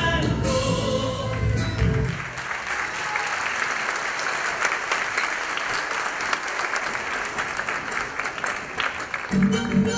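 Chacarera folk music stops about two seconds in and an audience applauds steadily for some seven seconds; the music starts up again near the end with violin.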